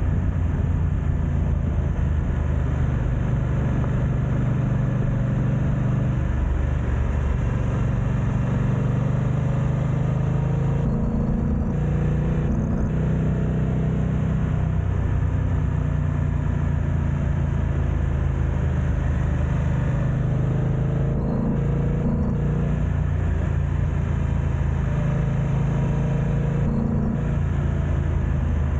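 BMW F900XR's parallel-twin engine pulling the bike along, its note stepping up and down several times with throttle and gear changes. Wind buffets the camera's built-in microphone throughout.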